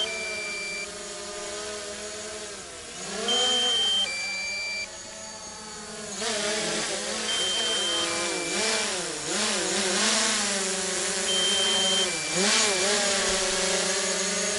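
Quadcopter drone hovering and descending to land, its propellers whining in a pitch that wavers up and down as it manoeuvres and growing louder from about six seconds in as it comes closer. Over it a two-tone low-battery warning beep, a higher tone then a lower one, repeats about every four seconds: the battery is exhausted.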